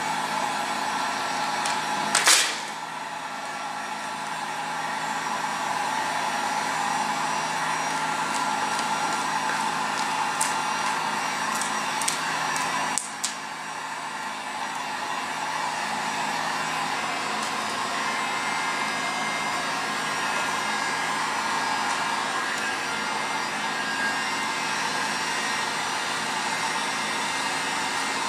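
Handheld electric heat gun blowing steadily as it heats vinyl wrap film on a wheel to soften it so it conforms, with a brief knock about two seconds in.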